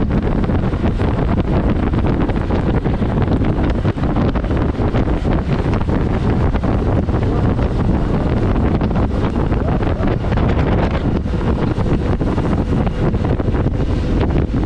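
Loud, steady wind rushing and buffeting on an action camera's microphone, as on a moving motorcycle; any engine sound is buried under it.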